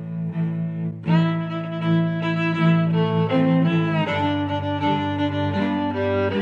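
Background music on bowed strings, with a low sustained cello-like line; it becomes fuller and brighter about a second in.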